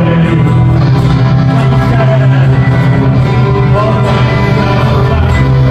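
Live band music through a PA: electric guitars, bass and drums with violin and cello, playing a steady, sustained passage.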